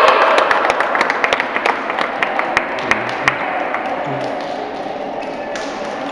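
Scattered sharp hand claps and slaps, thick at first and thinning out after about three seconds, as the cheering of a youth team and crowd dies down to a murmur of voices.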